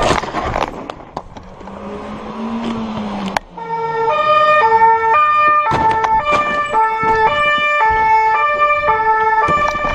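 A dirt bike going down with a loud burst of scraping noise at the start, its engine then running low. From about three and a half seconds in, a police two-tone siren alternates steadily between a high and a low note.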